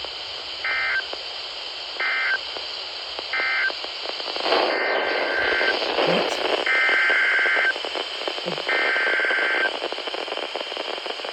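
Weather-radio emergency alert data bursts over radio hiss. There are three short screechy bursts about a second and a half apart, the end-of-message code closing the previous warning. Then come three longer bursts, the coded header that announces the next warning.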